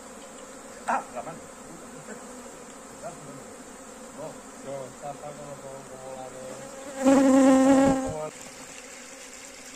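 A swarm of honeybees buzzing in the air around a hive box. Near the end one bee passes close for about a second, its buzz suddenly loud and steady; there is a short knock about a second in.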